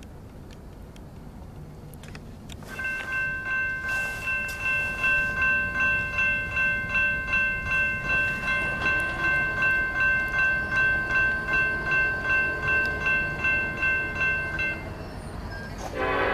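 Norfolk Southern SD70M-2 locomotive air horn sounding one long, steady chord of several notes for about twelve seconds, starting about three seconds in and pulsing in loudness a little over twice a second. Under it runs a low rumble, and a louder rushing noise comes in near the end.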